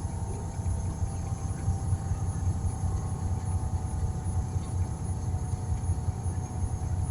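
Engine running steadily at idle, a continuous low hum with no change in speed.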